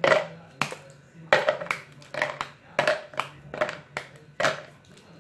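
Bars of aerated white chocolate (Roshen White Bubble) snapped into pieces by hand over a plastic jug: about a dozen sharp, irregular cracks.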